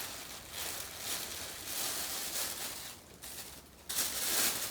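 Rustling and crinkling from something being handled, coming and going in uneven swells, briefly dropping away about three seconds in, then louder again near the end.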